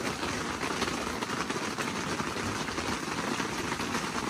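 Heavy rain falling on the fabric of an ice-fishing shelter, a steady even hiss with no let-up.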